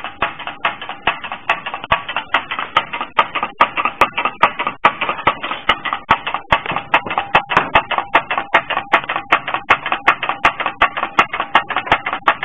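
Homemade drink-can heat engine running, its moving parts clicking and rattling in a fast, even rhythm of about six to seven beats a second with a metallic ring.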